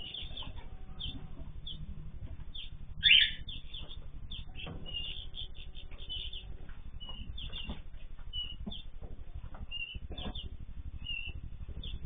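Mixed aviary birds (canaries, goldfinches, zebra finches and cockatiels) chirping and calling in many short, high notes, with one loud short call about three seconds in. The sound is thin and dull, as heard through a surveillance camera's microphone, over a low steady hum.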